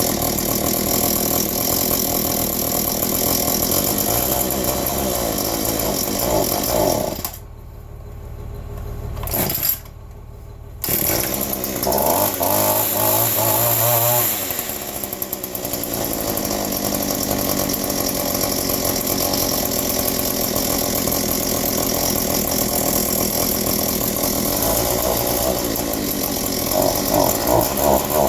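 Cold two-stroke weed eater engine running. About seven seconds in it sags almost to a stall, sputters, then picks back up sharply a few seconds later and runs on. It tends to die when cold, which the owner puts down to needing carburettor work after sitting.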